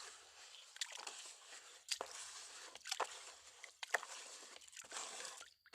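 Faint scraping and rustling of sand being dug and brushed out, broken by sharp clicks about once a second.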